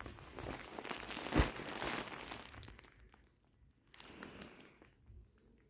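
Plastic-wrapped courier parcel being handled and turned over in the hands, its wrapping crinkling and rustling, with a single thump about a second and a half in. The crinkling is busiest in the first two seconds and thins to scattered crackles after that.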